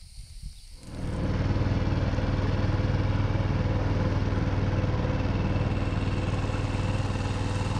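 Small boat's outboard motor running at a steady speed under way, a loud, even hum that starts abruptly about a second in.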